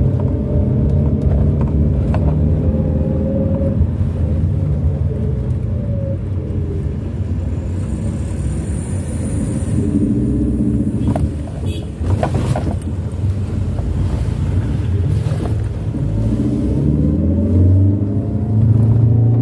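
A vehicle's engine running while driving, a low rumble whose pitch rises and falls with speed, with a few knocks around the middle and a louder stretch near the end.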